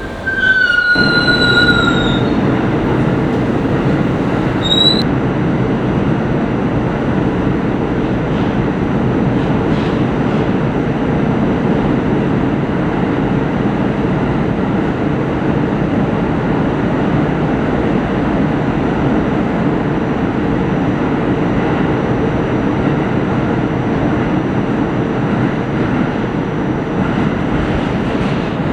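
New York City subway train running loud and steady, with high wheel squeal as it gets under way in the first two seconds and a short squeal again about five seconds in.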